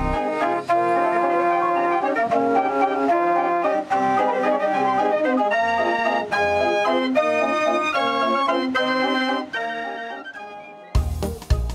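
Organ music playing held chords that change every half second or so, fading out about ten seconds in; a louder piece with a heavy beat and bass starts near the end.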